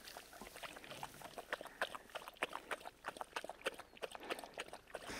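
Dog lapping water from a small pool: a quick, irregular run of wet clicks and small splashes, several a second.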